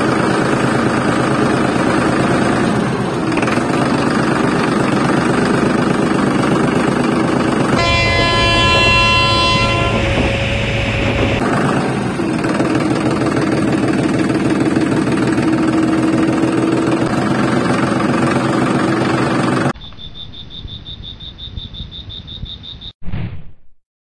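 A small vehicle running steadily, with a horn sounding for about three seconds near the middle. Near the end the running stops and a quieter stretch follows with a high steady tone, which cuts off abruptly.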